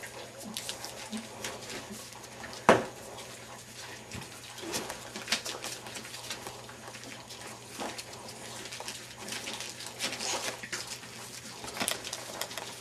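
English Bulldog puppies, five weeks old, scrabbling and crawling over newspaper, with crackling rustles and small puppy grunts and whimpers. One sharp knock about three seconds in stands out as the loudest sound.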